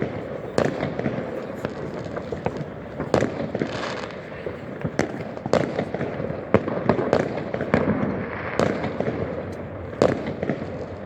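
New Year's Eve fireworks and firecrackers going off: a dense run of irregular sharp bangs and pops of varying loudness over a continuous background of more distant crackling.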